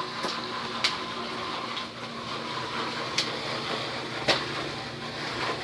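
Jiffy Pop foil pan sizzling on the stovetop as the oil heats before the kernels pop: a steady hiss with a faint hum under it. Three sharp clicks break it, about a second in, past three seconds, and past four seconds.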